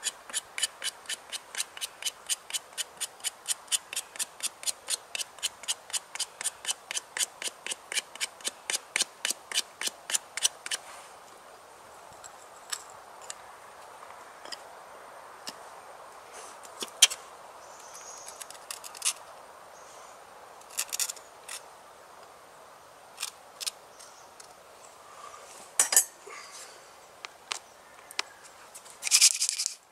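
Hand drill for friction fire: a wooden spindle spun back and forth between the palms in a hearth board, making a rhythmic scraping about three to four strokes a second for roughly ten seconds, then stopping. After that, a few scattered light clicks and scrapes.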